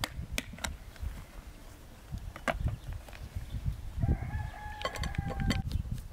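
A rooster crows once, about four seconds in: one held call of about a second and a half. Around it come sharp light knocks and taps from a plastic container and a mesh flour sieve being handled on a table.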